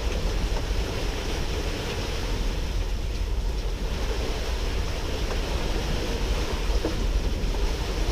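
Wind buffeting the microphone over the steady wash of water along the hull of a sailboat underway.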